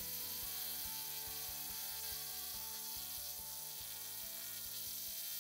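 Ryobi cordless drill boring into a concrete slab, a steady grinding hiss, with quiet background music under it.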